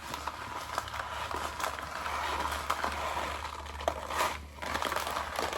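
Dry raw basmati rice grains being handled by hand, giving a continuous rustle with many small ticks, over a low steady hum.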